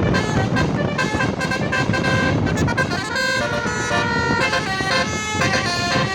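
Basuri telolet multi-tone bus horn playing a tune: a quick run of held horn notes stepping from pitch to pitch, over a steady rumble of engine and street noise.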